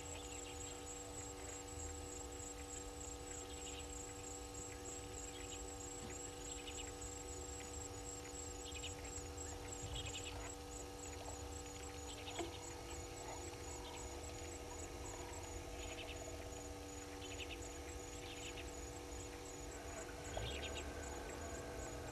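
Steady electrical hum with several tones at once, from the live camera's equipment. Under it, faint outdoor bush ambience with scattered short high chirps every few seconds.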